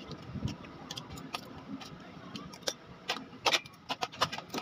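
Metal fork and spoon clicking and scraping against a plate as food is scooped up: a scatter of sharp clicks that come thicker and louder after about three seconds.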